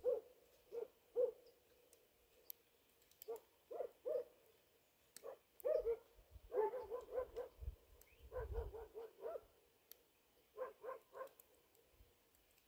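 An animal calling: short pitched notes, a few single ones at first, then quick runs of four or five notes, each run lasting about a second.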